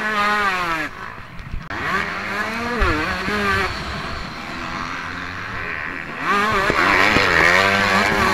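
Motocross bike engine heard from on board while racing, revving up and down as the throttle opens and closes and the gears change. It falls away briefly about a second in and is loudest near the end.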